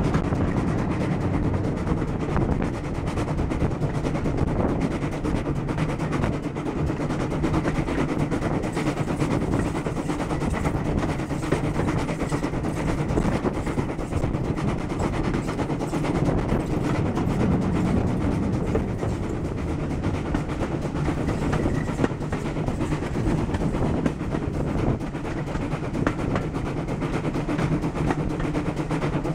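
Ex-GWR steam tank locomotive hauling a passenger train, heard from the carriage behind it: a steady run of rapid exhaust beats over the rumble and clatter of the coaches on the track. The engine is working hard.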